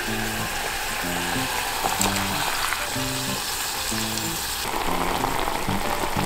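Broth boiling in a small pot: a steady bubbling hiss, which changes character about two-thirds of the way through. Background music with a slow run of low notes plays under it.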